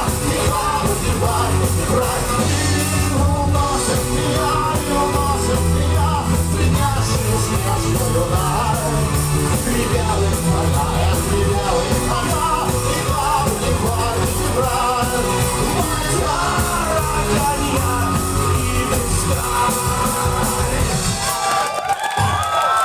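Live rock band playing with singing and yells. The band stops about a second before the end, leaving a few sung or shouted notes.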